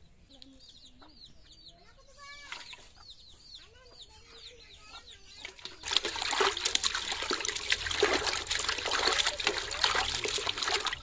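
Hands splashing and swishing water in a metal basin while rubbing pieces of hilsa fish clean, starting loudly about halfway through. Before that, birds call faintly with short falling chirps.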